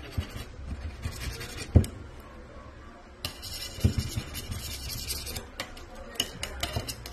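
A metal scraper blade rasping over a varnished wooden cabinet door, scraping off built-up grime in strokes. Sharp clicks and knocks come as the blade catches and taps the wood, the loudest a little under two seconds in.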